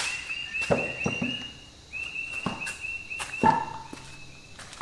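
Footsteps and knocks of steel gearbox parts, the reverse idler and its shaft, being carried and set down on a workbench, with a loud metallic clink about three and a half seconds in. Behind them a bird chirps in a rapid, even string of high notes.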